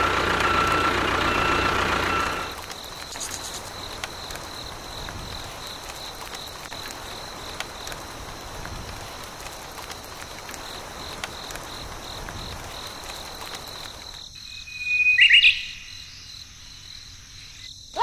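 A small motor runs with a steady whine and stops about two and a half seconds in. It leaves a steady, quieter high chirring of insects, such as crickets. A brief loud sound with a whistle-like tone comes near the end.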